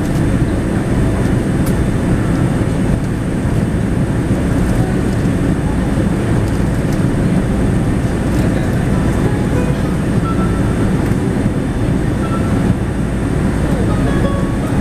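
Steady in-flight cabin noise of a Boeing 787-10 airliner during descent: a low, even rush of airflow and engine noise heard from inside the cabin by the window.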